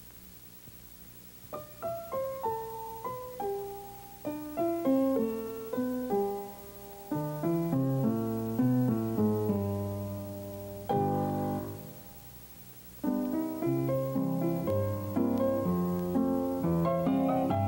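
Piano music: single notes and chords struck one after another, starting about a second and a half in, pausing on a held chord that fades away past the middle, then picking up again.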